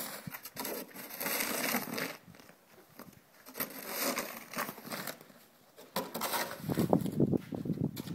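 A snow shovel scraping along a paved driveway as it pushes snow, in three bouts of scraping a couple of seconds apart. The last bout, near the end, is the loudest.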